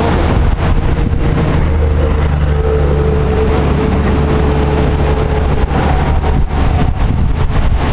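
Wind buffeting the camera's microphone: a loud, steady rumble with no words.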